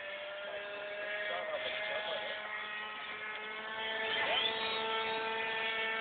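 Motor and propeller of a radio-controlled flying beer-crate model running steadily with a buzzing whine, dropping slightly in pitch and getting louder about four seconds in.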